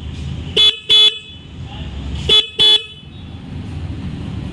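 Royal Enfield Super Meteor 650's single electric horn sounded in two double toots: two short beeps about a third of a second apart, then another pair about a second and a half later.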